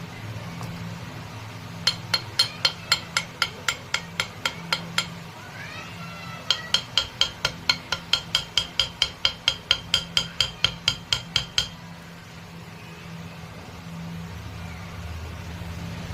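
Light metal-on-metal hammer taps, about four a second, in two runs of several seconds with a short pause between, each tap ringing briefly, over a low steady hum; typical of tapping on a ceiling fan motor's shaft.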